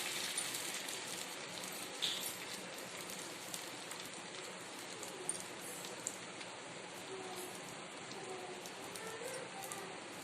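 Egg-dipped bread slices sizzling in ghee in a pan: a steady crackling hiss with a few sharper pops.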